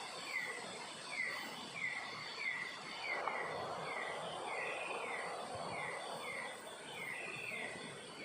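Outdoor natural ambience: a short falling chirp repeated about one and a half times a second, over a steady high insect drone. A soft rush of noise swells in the middle and fades.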